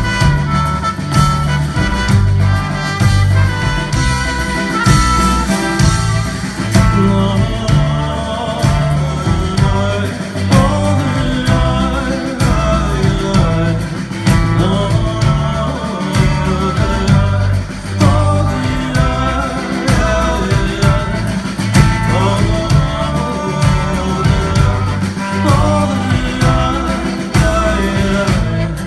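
Live band music, recorded from the audience: ukulele strummed over drums, bass guitar and keyboard, with trumpet and trombone and a man singing, over a steady pulsing bass line.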